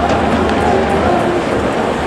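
Stadium crowd noise: many voices blending into a steady, dense din.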